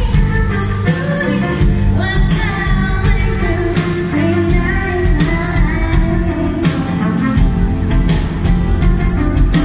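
Live band playing a Thai pop song: a woman singing over strummed acoustic guitar and electric bass.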